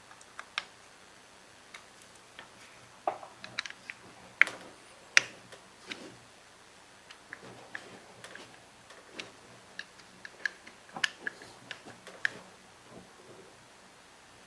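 Irregular light clicks and taps of small metal parts and a screwdriver as the cover-plate screws go into a carburetor during reassembly, with a sharper tap or two about four to five seconds in.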